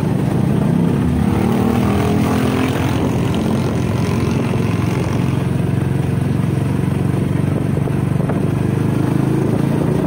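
A motor vehicle's engine running steadily, with a low hum that wavers slightly in pitch.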